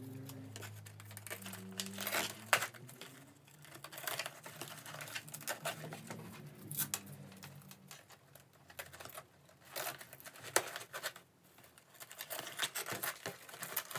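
Velcro straps being threaded through the slots of a plastic mountain-bike mudguard: irregular rustling, crinkling and small clicks of nylon strap and plastic being handled.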